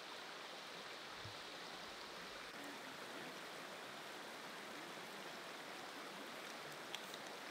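Mountain stream running steadily, an even rush of flowing water, with a couple of faint ticks near the end.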